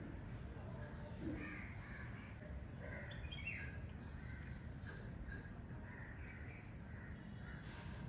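Scattered bird calls over a steady low background hum: short harsh calls every second or two and a few thin descending whistles.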